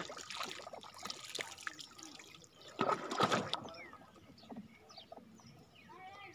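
Water splashing and trickling around a raft of banana-tree trunks, with a louder burst of splashing about three seconds in.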